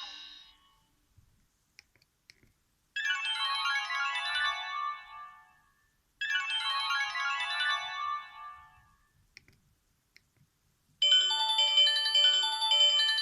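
Sony Ericsson S312 mobile phone ringtones. The tail of one tone fades out, then a short ringtone phrase plays twice, about three seconds apart, each dying away. Near the end a new, fuller ringtone melody begins.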